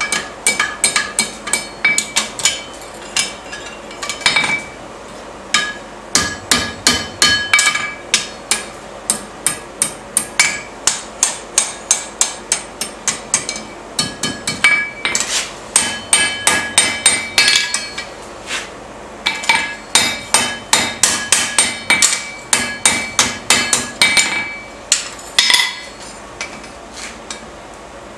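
Hand hammer striking a steel scroll over the anvil horn in quick runs of blows, a few a second, each blow leaving a ringing note from the anvil. There are short pauses between runs, and the blows stop a couple of seconds before the end.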